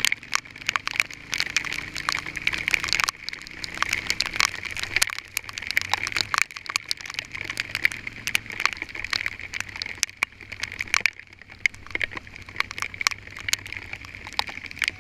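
Hail pelting a vehicle: a dense, irregular clatter of sharp ticks, with a low engine hum underneath.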